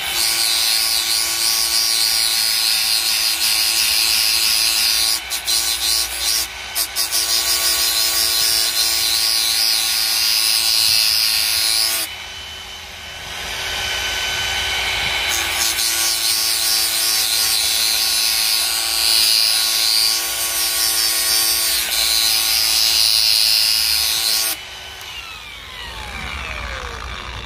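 Hand-held angle grinder with a sanding disc grinding the steel edge of a brush cutter blade: a steady motor whine under harsh grinding noise. The grinding stutters around six seconds in, eases off about twelve seconds in, then picks up again. Near the end the grinder is switched off and its whine falls as the disc spins down.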